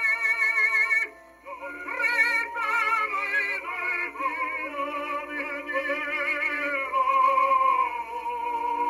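A 1910 acoustic recording of an operatic tenor-baritone duet with orchestra, played from a shellac 78 rpm record on a Victor Victrola VIII acoustic phonograph with a steel needle. The voices sing held notes with wide vibrato, with a short break in the singing about a second in before the phrase resumes.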